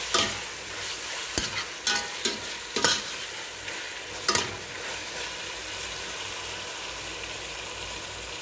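Diced tomatoes frying in oil in a stainless steel pot while a metal spoon stirs them, scraping and knocking against the pot about six times in the first four seconds or so. After that there is only a steady sizzle.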